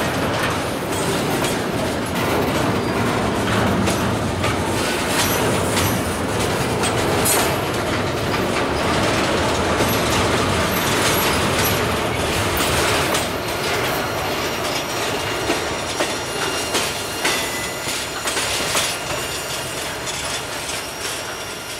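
Freight cars rolling slowly past on the rails: empty autoracks and intermodal container well cars, with wheels clicking over rail joints and a faint high wheel squeal. Sharp clicks come more often in the later seconds, and the sound fades near the end as the last cars go by.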